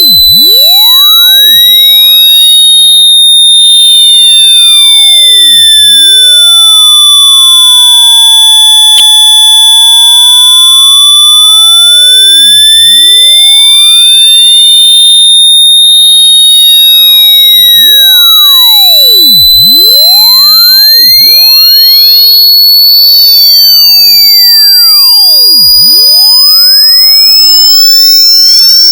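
Very loud, electronically generated high-pitched tone. It holds near one pitch for most of the time and slowly rises toward the end, with fainter tones gliding up and down beneath it.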